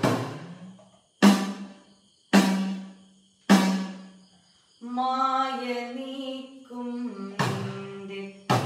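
Edakka, the Kerala hourglass drum, struck with a stick: three single strokes about a second apart, each ringing with a low pitch that dies away. Then a woman sings a short sopana-style phrase, and the drum strokes start again near the end.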